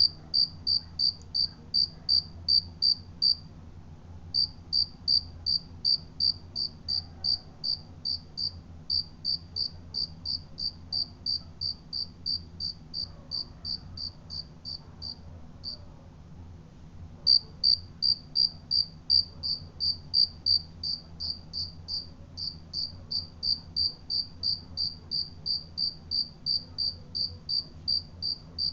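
Cricket chirping: a regular run of short, high chirps, about three a second, with brief pauses about four seconds in and again near the middle.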